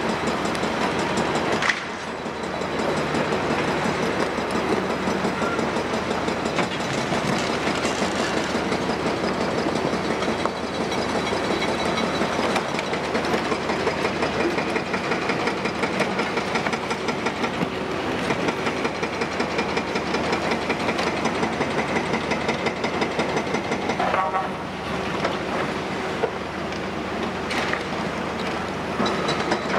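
Large Cat hydraulic excavator's diesel engine running under load, with a continuous clatter and grinding of broken concrete rubble being scooped and dropped into a tipper truck's steel body. A short squeal is heard about three quarters of the way through.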